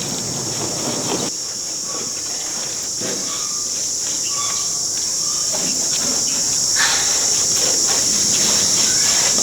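Steady, high-pitched insect drone that grows a little louder toward the end, with scattered light knocks and taps underneath.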